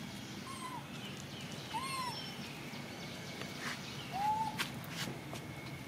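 Long-tailed macaques giving three short calls, each rising then falling in pitch, spread over a few seconds, with the last one the loudest. Faint clicks sit over a steady outdoor hiss.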